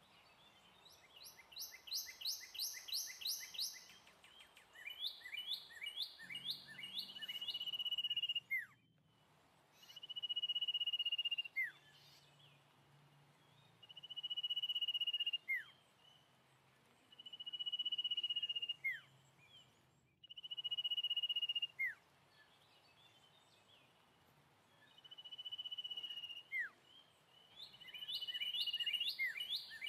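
Bird calling: quick trains of high chirps near the start and end, and in between long steady whistled notes that each end in a quick downward slur, repeated about every three to four seconds.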